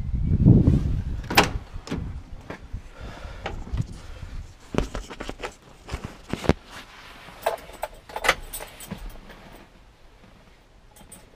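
Handling noise of someone climbing into a truck cab: a low bumping rumble at first, then scattered knocks and clicks, with a light jingle of keys near the end.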